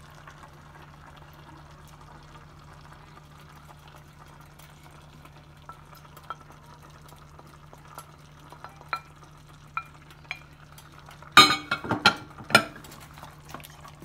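Wooden spoon stirring chunky chicken, potatoes and tomato in a stainless steel stockpot. Soft ticks and plops come first, then a quick run of loud clacks and scrapes of the spoon against the pot about three-quarters of the way through. A steady low hum runs underneath.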